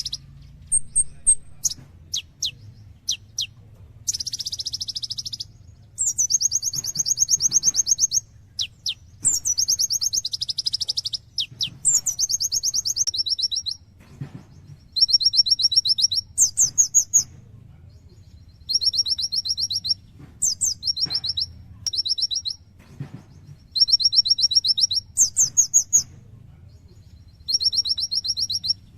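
Kolibri ninja sunbird singing: high, rapid trilled phrases a second or two long, repeated with short gaps, mixed with sharp down-slurred notes.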